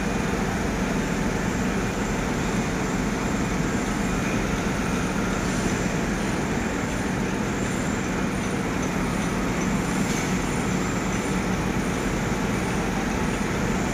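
Heavy diesel machinery running steadily at idle: a continuous low drone under an even engine noise.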